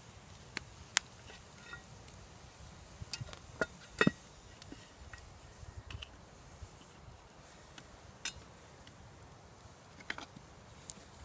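Scattered metal clinks and knocks of a spoon and lid on a Lodge No. 8 cast iron Dutch oven, the loudest two knocks about four seconds in, as the lid is set on and handled. The campfire crackles faintly in between.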